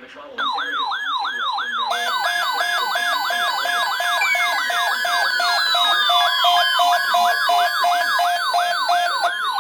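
Several electronic emergency-vehicle sirens sounding at once, starting suddenly. A fast yelp sweeps about four times a second and is joined about two seconds in by a second yelp with a pulsing tone. A slower wail falls in pitch through the middle and starts rising again near the end.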